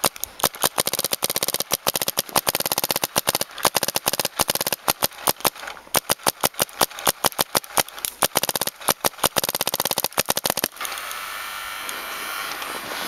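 Bob Long Vice electronic paintball marker firing rapid strings of shots, many a second with short breaks between strings. The shooting stops suddenly about eleven seconds in.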